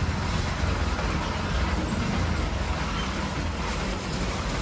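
Heavy trucks, a sack-laden cargo truck and a tanker lorry, driving slowly over a level crossing: their engines make a steady low rumble.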